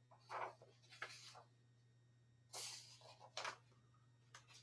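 Near silence: the room tone of an open video-call microphone, a faint steady hum with a few soft, brief rustles.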